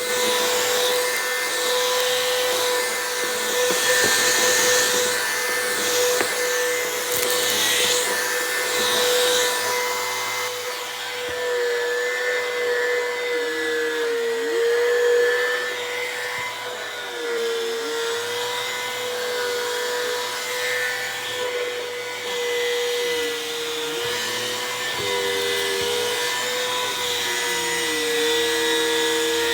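Bissell CleanView vacuum cleaner running with a steady motor whine. In the first part an airy rushing swells and fades repeatedly, and later the motor pitch sags briefly several times as the suction is loaded.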